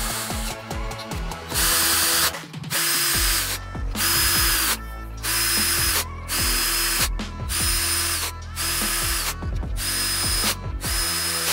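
A power drill run in repeated short bursts, under a second each, spinning up to a steady whine with brief pauses between. Background music plays underneath.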